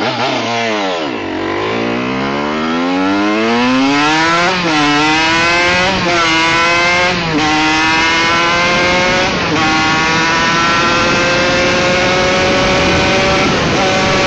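Honda CR125 two-stroke single-cylinder motocross engine under hard acceleration with two riders aboard. The revs climb and drop sharply four times as it shifts up through the gears, then hold high and nearly steady at speed.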